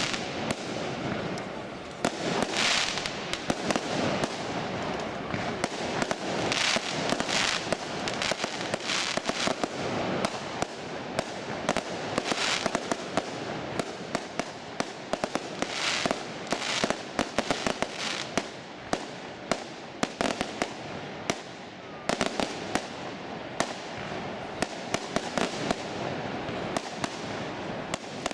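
Fireworks going off: a rapid, irregular string of sharp cracks and pops over a steady crackle, growing denser in the second half.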